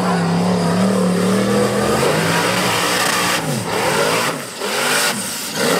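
Off-road racing buggy's engine held at high revs for about two seconds, then revving up and down repeatedly as it powers through mud.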